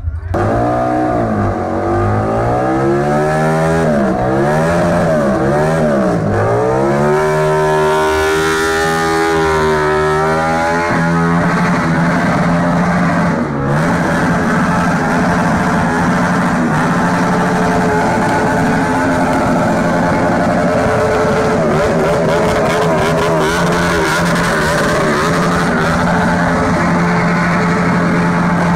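Motor vehicle engine revved hard, its pitch swinging up and down over and over for about ten seconds, then held at a steady high speed, with one brief dip a little after that.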